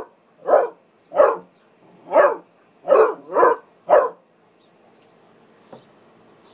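Basset hound puppy barking at play: about seven short barks in quick succession, stopping about four seconds in.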